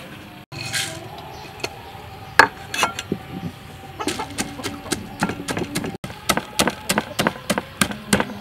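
Wooden pestle pounding peanuts in a wooden mortar: a few separate knocks at first, then steady pounding at about three strikes a second from about four seconds in.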